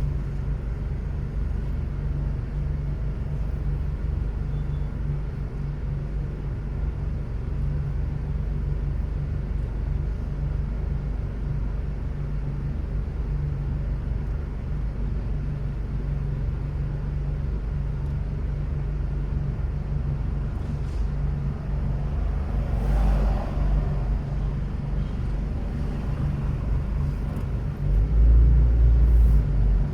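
Car driving on city roads: a steady low rumble of engine and tyre noise. A brief swell of wider noise comes about 23 seconds in, and the low rumble grows louder in the last two seconds.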